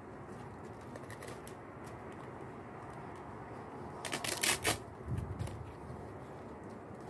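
Dry plaited leaf strip rustling and crackling as it is picked up and handled, with a few light crackles early and a short loud burst of crackling about four seconds in.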